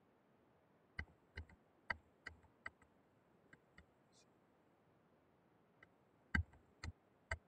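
Light clicks and taps at a computer's input, about a dozen in two bunches, from repeated tries to open a new page in a note-taking program that is not responding.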